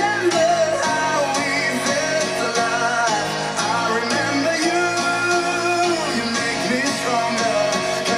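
A rock-and-roll song with a singing voice and guitar, played back through Boston Acoustics A23 speakers.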